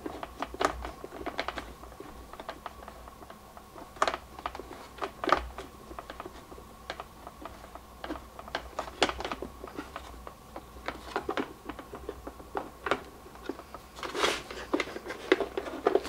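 Irregular small clicks, taps and rattles of hard plastic and wiring being handled as a drip coffee maker's plastic housing is worked apart by hand, with a louder flurry of clicks near the end.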